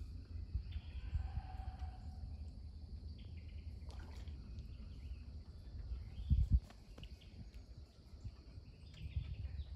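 Steady insect drone with wind rumbling on the microphone. A short pitched call sounds about a second in, and a brief low thump comes about two-thirds of the way through.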